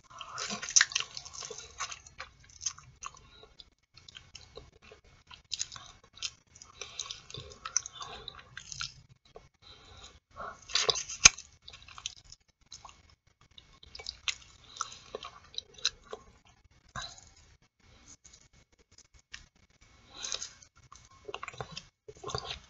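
Close-up mouth sounds of eating boiled artichoke: irregular chewing, wet smacks and lip-sucking as pieces are pulled off with the teeth and fingers, with a louder burst of smacking about halfway through.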